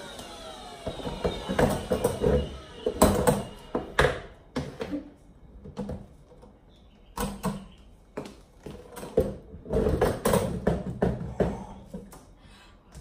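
A Sauber vacuum cleaner's motor winding down with a falling whine as it is switched off, followed by irregular clicks, knocks and rattles as its hose and plastic curtain nozzle are handled.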